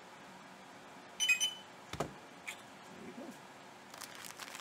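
Handling noises at a desk: a short, high squeak about a second in, a sharp knock a moment later, then a run of small clicks and rustles near the end.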